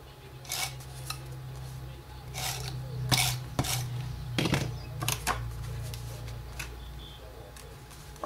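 Cardstock being stuck down by hand: a string of short paper rustles, clicks and taps from running an adhesive applicator along the panel and pressing it onto the card base.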